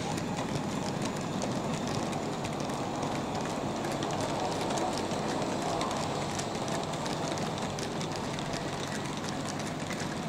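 OO gauge model goods train of vans running along the layout's track: a steady rolling rumble with many small clicks from the wheels on the rails.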